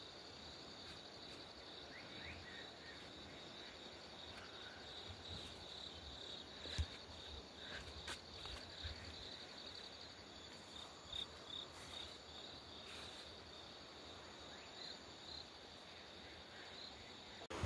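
Faint, steady chirring of insects in the open air, a continuous high buzz, with a few faint scattered clicks.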